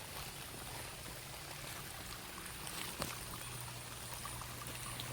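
Rainwater running and pouring along a drainage ditch over a small dam, a steady rush of flowing water, with a single short knock about three seconds in.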